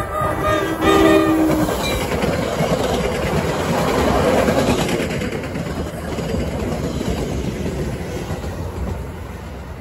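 New Jersey Transit push-pull train passing close by. Its horn sounds in two blasts with a short break, ending about a second and a half in. The train then rolls past with wheels rumbling and clacking over the rail joints, loudest about four seconds in, and fades as the ALP-45DP locomotive pushing at the rear goes by near the end.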